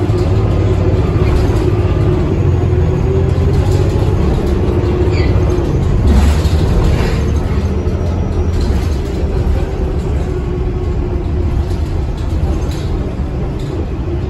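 Cabin sound of a New Flyer D40LF diesel transit bus under way: a steady low engine and road rumble with a steady whine, and scattered rattles and clicks. A louder bump comes about six seconds in.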